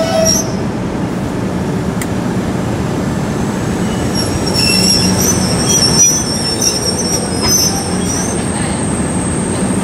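A train moving through the station with a steady rumble, its wheels squealing on the rails in thin high-pitched tones near the start and again from about four and a half to eight seconds in.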